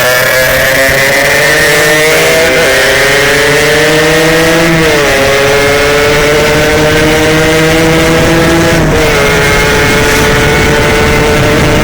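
Yamaha RX-King 135cc two-stroke motorcycle engine at full throttle, its pitch climbing slowly and dropping abruptly at gear changes, twice clearly, about halfway through and near three-quarters of the way in.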